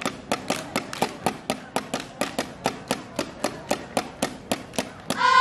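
Rapid, even hand-clapping and body-slapping of a Saman dance troupe, about five claps a second. Just before the end a loud sustained tone with a slightly falling pitch cuts in.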